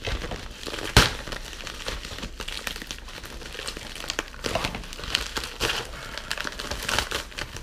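Thin plastic bubble-wrap mailer crinkling and crackling as it is pulled open and torn away from a can, in a busy run of irregular crinkles. A single sharp snap about a second in stands out as the loudest sound.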